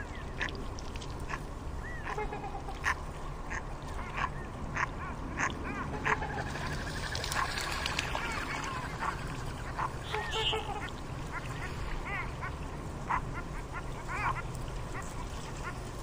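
Gulls and mallard ducks calling, with many short calls coming close together and overlapping, over a steady low rumble.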